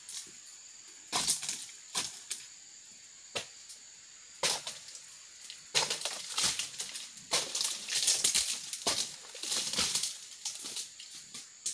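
Dry oil palm fronds crackling, snapping and rustling in irregular sharp cracks as an overgrown palm is pruned. The cracks come only now and then at first and grow dense about halfway through.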